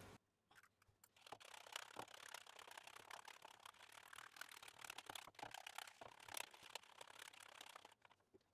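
Faint, rapid clicking and scraping of a metal wire whisk beating egg in a plastic bowl. It starts about a second in.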